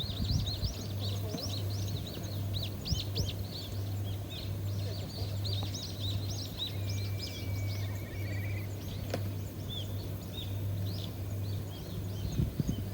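Many small birds chirping together in quick, high, overlapping notes, with one bird giving a short trill partway through. A steady low hum runs underneath, and a low rumble rises near the end.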